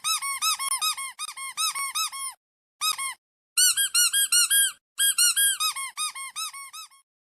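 Rubber squeaky toy squeezed rapidly again and again, about four or five squeaks a second, each squeak rising and falling in pitch. The squeaks come in quick runs with short pauses between them and stop shortly before the end.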